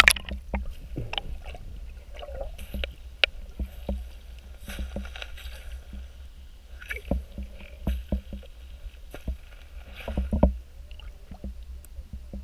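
Muffled underwater sound from a camera held below the surface in shallow sea water: a steady low rumble with scattered clicks and knocks.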